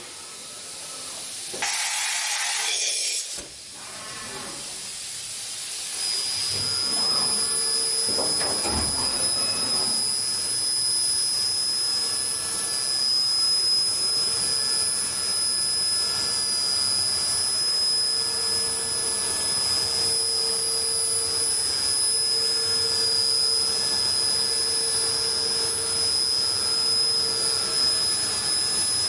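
DMG DMU 100 monoblock 5-axis machining center running: a loud hiss about two seconds in, then from about six seconds in a steady high-pitched whine with a lower hum over a noisy machine bed.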